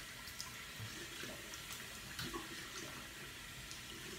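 Bathroom sink tap running steadily while something is rinsed under it, with a few faint splashes.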